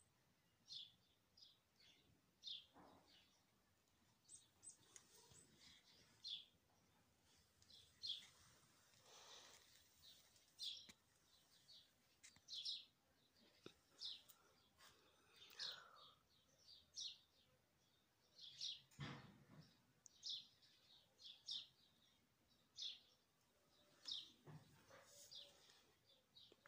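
Small songbirds chirping, quiet short high chirps repeating every second or so over faint outdoor background.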